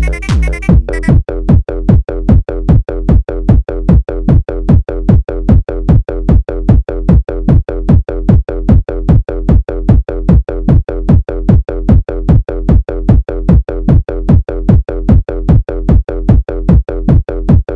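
Electronic dance music, a speed house track: a drum-machine kick drum pounding steadily about two and a half beats a second, each thump dropping in pitch, over a low bass. The higher synth layers drop out about a second in, leaving the kick and bass.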